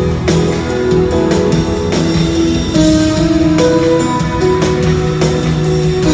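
Instrumental pop music with no singing: guitar chords over a steady drum beat.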